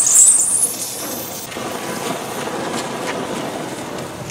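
Oxyacetylene torch flame hissing against a control arm's burning rubber bushing, heating the bonded rubber to loosen it. The hiss is loud and high for about the first second and a half, then gives way to a lower, steadier rushing noise.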